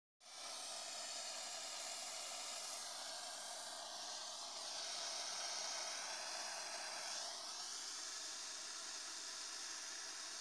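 Small handheld gas torch burning with a steady hiss.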